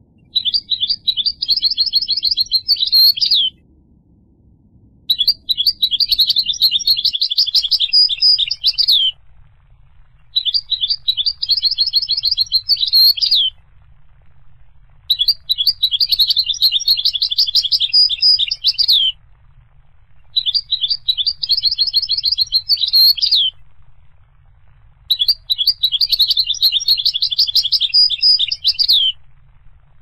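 European goldfinch singing: six high-pitched phrases of rapid twittering notes, each lasting three to four seconds, with short pauses between them.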